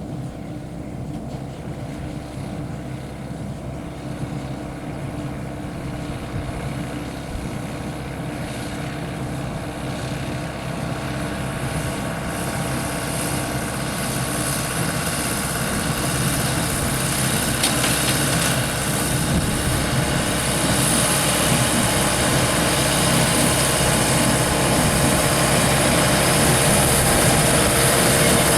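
John Deere 6300 tractor's diesel engine running steadily under load while working a John Deere 328 small square baler, growing gradually louder.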